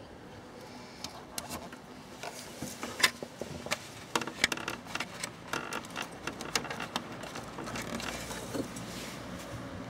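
Small clicks and rattles of a headlight bulb and its housing being handled and fitted into a motorcycle headlight from behind, starting about a second in, with the sharpest click about three seconds in.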